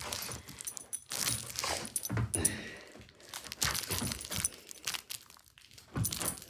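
Dog's collar tags jingling, with irregular light clicks and rustling as the dog moves about and shakes a plush toy.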